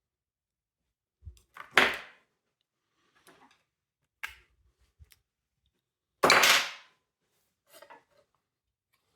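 Handling sounds from taking apart a window vacuum cleaner: a series of separate knocks and clicks of its parts being moved and set down, the loudest about two seconds in, with a longer clatter of about half a second a little past six seconds.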